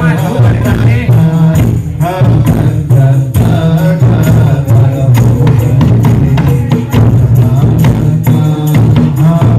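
Loud music played through a big carnival sound system, with very heavy bass and tambourine-like percussion.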